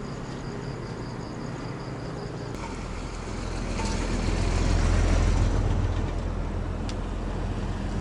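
Road traffic: a motor vehicle passes close by, its low engine rumble swelling to a peak about five seconds in and then fading. Before that, for the first couple of seconds, a steady background with a high, rapidly pulsing chirp.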